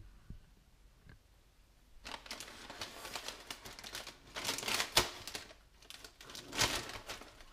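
Brown paper bag of freshly microwave-popped popcorn crinkling and rustling as its stapled, folded-over top is pulled open by hand, starting about two seconds in, with a few louder crackles.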